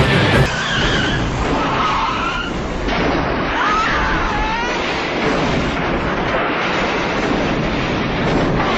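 Vehicle crash: a truck tumbling and rolling over, a dense, continuous crashing and scraping din. It opens with a loud hit, and short squeals rise and fall about four seconds in.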